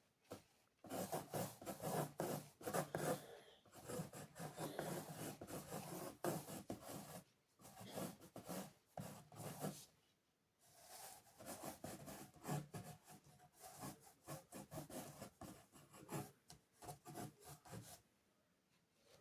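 Paintbrush scrubbing and dabbing on paper in quick, rapid strokes. There are two long runs of strokes, broken by a short pause about ten seconds in.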